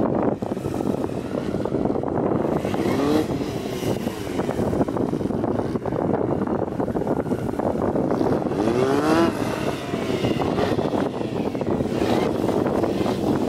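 Honda CBR929RR motorcycle's inline-four engine running and being revved up and down, rising in pitch clearly about three seconds and nine seconds in.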